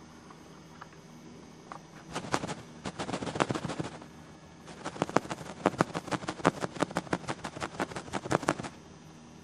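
A rapid run of sharp clicks, several a second, in two bursts: a short one starting about two seconds in and a longer one of about four seconds after a brief pause.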